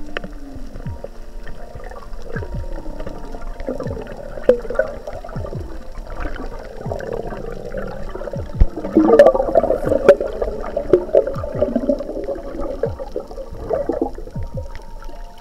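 Water bubbling and gurgling, busiest and loudest about nine to ten seconds in, with many short low sounds that fall in pitch.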